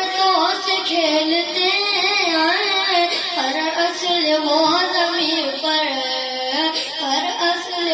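A child singing an Urdu manqabat as a single voice, with wavering, ornamented held notes and melodic glides.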